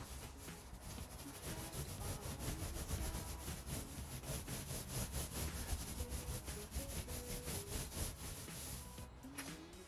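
Paint roller loaded with white paint being rolled up and down a rough stable wall, a continuous scratchy rubbing with a quick, even texture to it.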